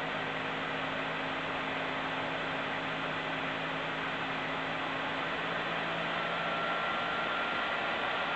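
EVGA GTX 970 blower-style cooler fan running with a steady rushing noise. From about six seconds in, a thin whine appears and climbs slightly in pitch as the fan speeds up and grows a little louder.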